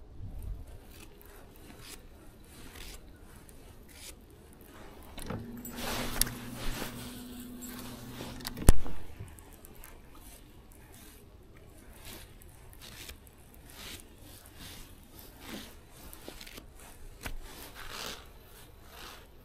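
Faint scratching and clicking of a baitcasting reel being cranked and the rod handled. About five seconds in, an electric trolling motor hums steadily for about three seconds, then stops. A sharp knock comes as it stops.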